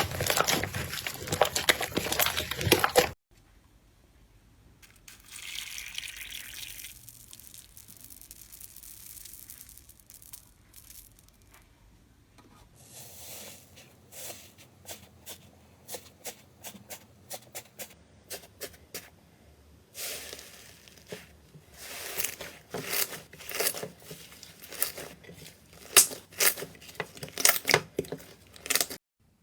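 Slime being squeezed and pressed by hand, giving dense crackling and sharp popping clicks. The sound changes between short clips: thick crackling at first, a quiet stretch with a soft hiss, then scattered pops that turn into rapid, loud popping in the last third.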